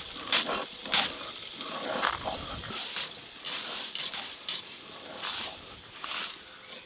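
Cabbage being shredded against a boti blade, in crisp crunching strokes. About three seconds in, this gives way to rasping scrapes of stone on stone as spices are ground on a flat grinding stone (shil).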